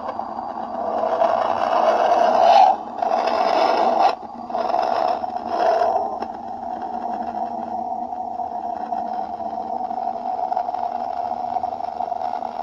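Eerie droning 'planet sound' recording, a noisy hum that swells three times in the first six seconds with brief drop-outs between, then settles into a steady drone.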